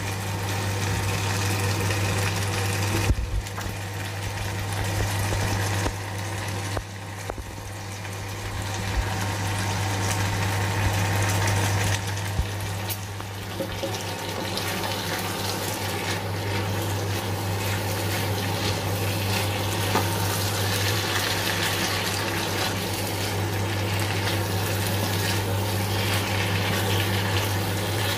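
Chicken pieces in oyster-sauce gravy bubbling and sizzling in a wok, over a steady low hum.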